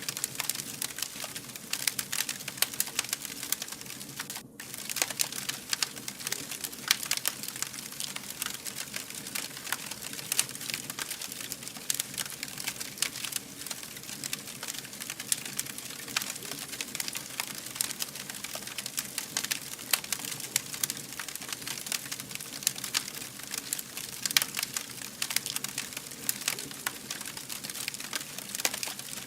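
Fire crackling steadily, with many sharp snaps and pops over a soft hiss, broken by a momentary gap about four and a half seconds in.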